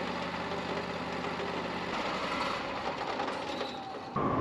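Engine idling steadily. About two seconds in, its low hum changes and becomes weaker and rougher.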